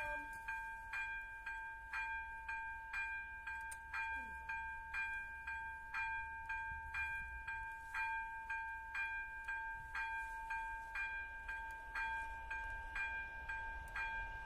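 Level-crossing warning bell, an AŽD electronic ZV-02 ringer, striking evenly about twice a second, each stroke ringing on into the next: the crossing is active, warning of an approaching train.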